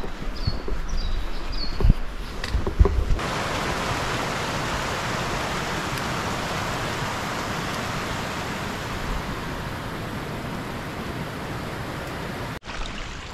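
Footsteps on a forest trail while a small bird gives four short falling chirps. About three seconds in, this gives way to the steady rush of a stream running over rocks, which cuts off just before the end.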